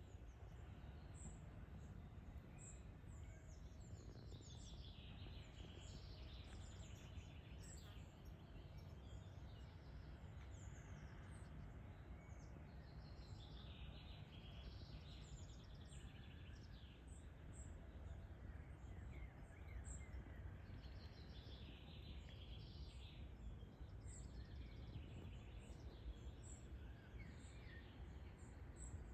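Faint birdsong: several birds chirping and trilling over a low, steady rumble.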